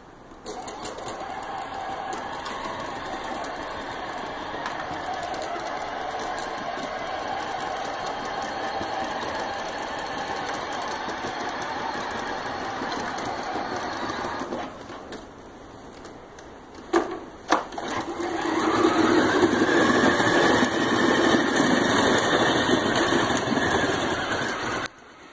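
Electric drive motors and gearboxes of a battery-powered ride-on toy ATV, running steadily as it pushes a homemade snow plow. The motors drop away for a few seconds, two sharp clicks follow, and then they run again louder until they cut off suddenly near the end.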